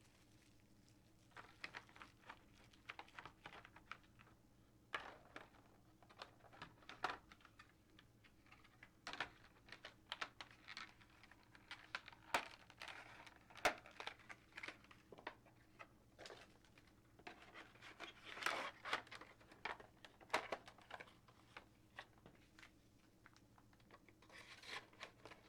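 Packaging being handled during an unboxing: irregular rustling and crinkling with many small, sharp plastic clicks as an HO-scale model railroad car is taken out and put back.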